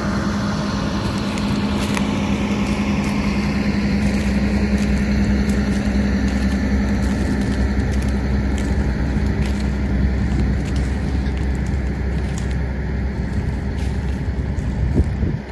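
Caterpillar 324D L long-reach excavator's diesel engine running steadily up close, a constant low drone whose hum eases off about two-thirds of the way through.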